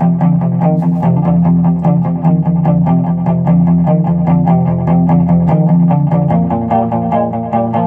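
Gretsch Rose Falcon hollow-body electric guitar playing a fast boogie riff, quickly picked notes over a steady repeating low note.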